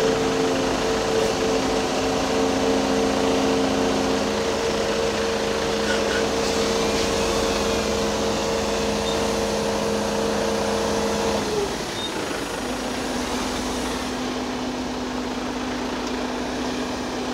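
Diesel engines of a Volvo EC380E excavator and Mercedes-Benz Arocs tipper trucks running steadily. About 11½ seconds in, a steady engine tone drops in pitch and falls away, and a lower steady tone carries on.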